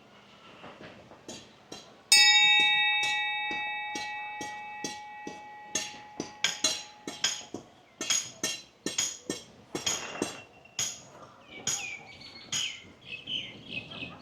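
A bell or similar piece of metal struck once about two seconds in, ringing with several steady pitches and fading slowly, over a run of sharp knocks about twice a second. Short chirps come near the end.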